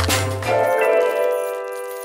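Background music: the beat and bass line stop just under a second in, and a final chord rings on, slowly fading.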